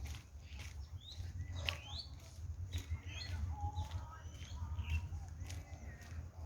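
Birds chirping: many short, quick notes, several sweeping upward, scattered throughout, with a few sharp clicks over a steady low rumble.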